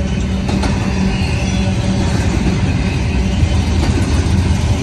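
Double-stack intermodal well cars rolling past at trackside: a loud, steady rumble of steel wheels on rail, with a few faint clicks.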